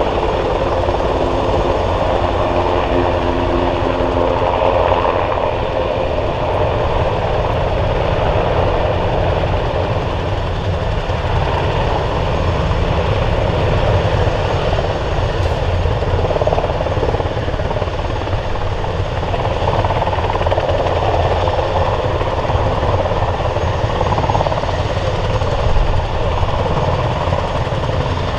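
NH90 NFH twin-turbine helicopter hovering low and setting down, its main rotor beating in a steady pulse over the turbine noise. A set of steady pitched tones stands out during the first five seconds or so, then sinks into the noise.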